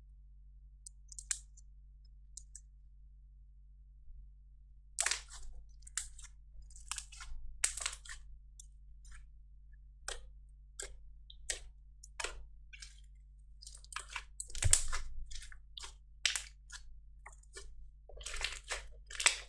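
Thick slime being squeezed and kneaded by hand, giving irregular sticky crackles and squelches. It is nearly quiet for the first few seconds, then the crackles come thick and fast, with one louder squelch about two-thirds of the way through.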